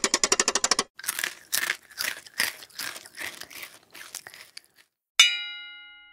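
Cartoon sound effects: a fast rattle of clicks, then a run of crunchy, crinkling bursts about two a second that fade away, then a single bright metallic ding that rings and dies out, the loudest sound.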